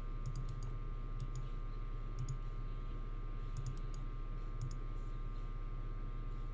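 Faint clicking at a computer, a few clicks at a time in small scattered clusters, over a steady low electrical hum.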